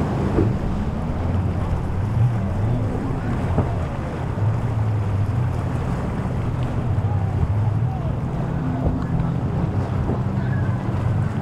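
Motorboat engines droning steadily, with wind buffeting the microphone and waves washing.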